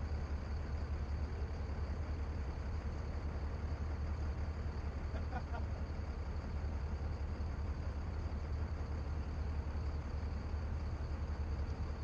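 Steady low drone of a Navy assault craft's engines running, heard from on board, with a constant hum and a faint steady tone above it.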